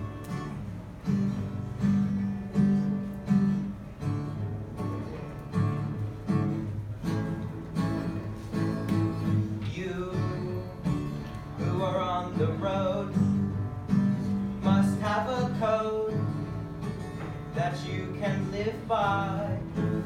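Acoustic guitar strummed in a steady rhythm. A wavering melody line joins it about halfway through.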